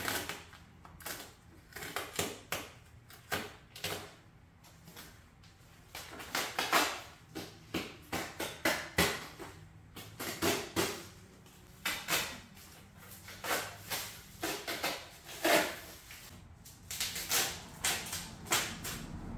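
Protective plastic film and wrapping being ripped and peeled off a new dirt bike, a long run of irregular crinkling, rustling and tearing.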